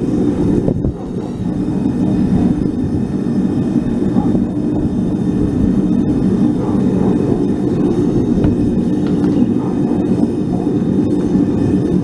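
Propane gas burner of a small homemade furnace firing steadily, a constant low rumble.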